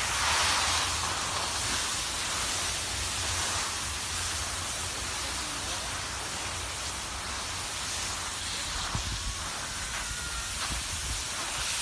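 Steady hiss of wind buffeting the microphone, with a constant low rumble underneath.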